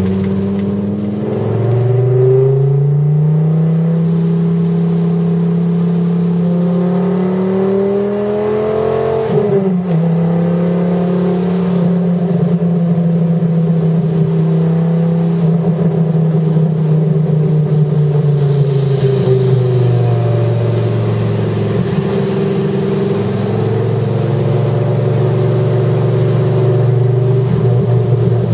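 Dodge Viper GTS's V10 engine heard from inside the cabin under way: the revs drop at a gear change about a second in, climb steadily for several seconds, drop again at another gear change near ten seconds, then slowly fall off and settle into a steady cruise.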